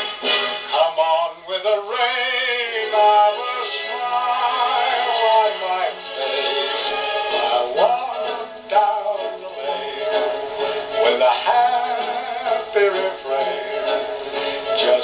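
A male vocal with orchestra played from a 78 rpm record on a portable wind-up gramophone. The voice sings with vibrato over a thin sound that has almost no deep bass.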